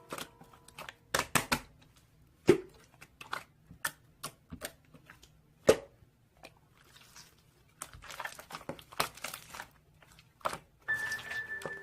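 Close-up handling sounds: scattered crinkling and crackling with sharp clicks and pops, the two loudest pops about two and a half and six seconds in, and a denser run of crackling later on.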